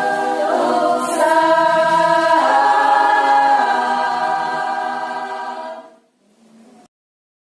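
Women's choir singing a march in unison and parts, with sustained notes; the singing tapers and stops about six seconds in, followed by silence.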